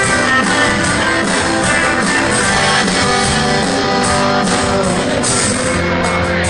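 Live rock band playing an instrumental passage with guitars to the fore over bass and drums.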